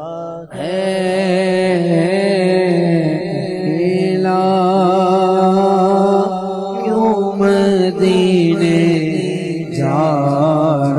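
A man singing a naat, an Urdu devotional poem, into a microphone in long, drawn-out, ornamented vocal lines over a steady low hum. He breaks off for a moment about half a second in.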